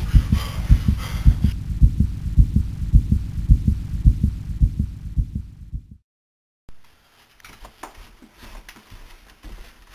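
Heartbeat sound effect: deep, low thumps repeating evenly several times a second. It fades and cuts off suddenly about six seconds in. After a brief silence come faint taps and rustling.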